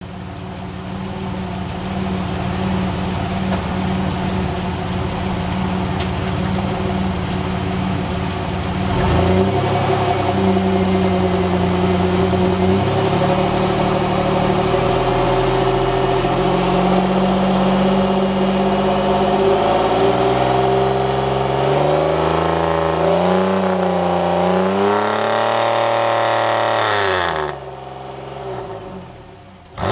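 1999 Pontiac Firebird's 3.8-litre V6 revving in neutral through a stock 2000 Trans Am WS6 muffler, with a raspy exhaust note. It holds steady for about nine seconds, then is stepped up and held at higher revs, then is blipped up and down several times before falling away near the end.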